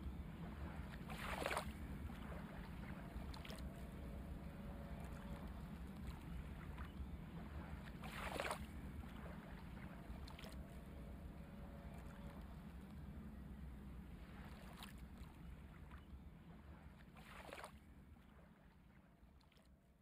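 Faint low rumble of background noise with a few soft swishes of pencil and hand rubbing across sketchbook paper while shading, fading out near the end.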